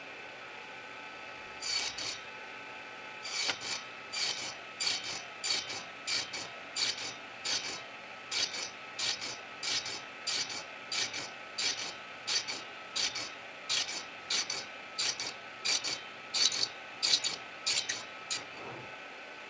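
Wood being scraped by hand with an abrasive tool, in rhythmic back-and-forth strokes of about two a second. The strokes start about two seconds in and stop near the end.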